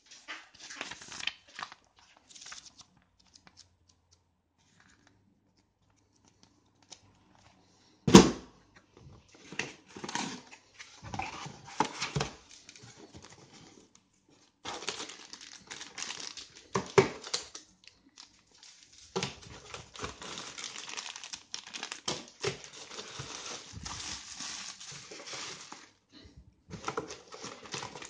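Plastic and paper packaging crinkling and tearing as it is handled and unwrapped, in spurts and then longer stretches. A sharp knock about eight seconds in and another near seventeen seconds, as items are set down.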